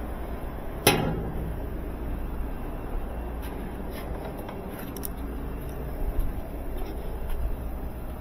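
A single sharp knock, then small metallic clicks and clinks from a steel tool-chest drawer and the pliers in it as a pair is picked out, over a steady low background rumble.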